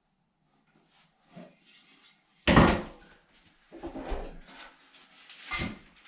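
Knocks and thumps of a small bathroom sink cabinet and basin being handled and set in place: one loud thump about two and a half seconds in, then a few lighter knocks.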